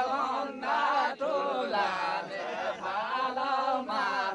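Background music of a single voice singing a slow chant with a wavering, ornamented melody, in phrases broken by short breaths.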